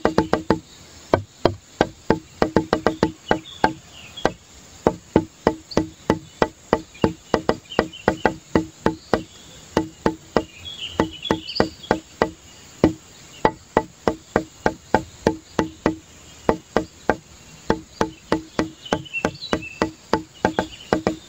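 Background music built on a quick, steady pattern of short struck notes, about four a second, with faint high chirps over it.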